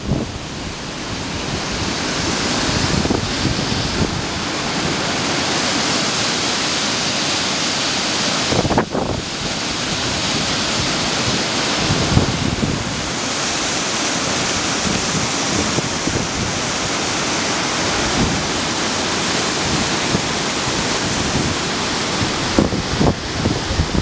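Fast mountain stream rushing over rocks, giving a steady wash of white-water noise that swells over the first couple of seconds. Wind buffets the microphone with low rumbles throughout.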